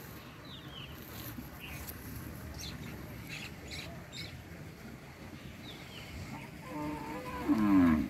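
Water buffalo lowing once near the end, a short low call. A few faint bird chirps come before it over a steady background hiss.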